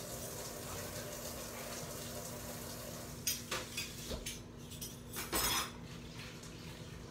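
Metal kitchen utensils and cookware clinking: a few sharp clinks about three seconds in, then a longer clatter about five seconds in, over a steady low hum.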